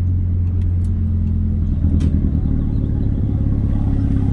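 Audi A3 8P running with a downpipe and a straight-piped 2.5-inch exhaust, giving a loud, steady low drone that swells slightly about two seconds in.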